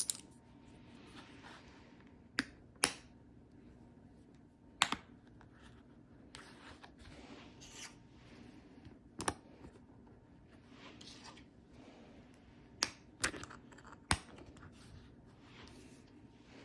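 Magnetic golf ball markers snapping onto a cap, about seven sharp clicks spread irregularly, with soft rustling of handling between them.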